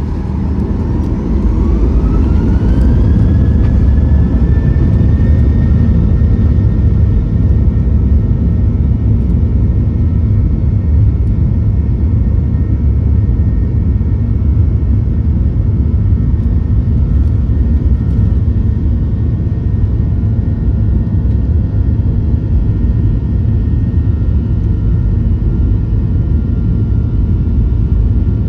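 Boeing 737-800's CFM56-7B jet engines spooling up to takeoff thrust, heard inside the cabin. A whine rises in pitch over the first few seconds as the roar grows louder, then holds steady over a heavy rumble through the takeoff roll.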